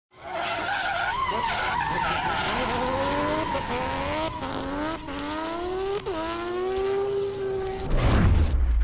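Car engine accelerating hard, its pitch climbing and dropping back several times as it shifts up through the gears, followed near the end by a loud low rush.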